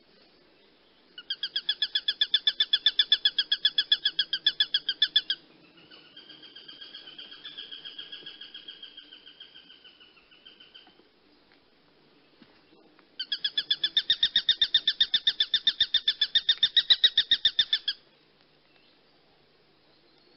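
A bird calling in rapid chattering runs of about ten shrill notes a second: a loud run of about four seconds, a softer run, then a second loud run near the end.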